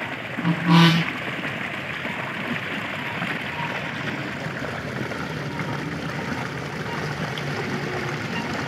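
Water running steadily, gushing white into a pond over its muddy bank. About half a second in, a brief loud pitched call, like a person's voice, stands out above the water.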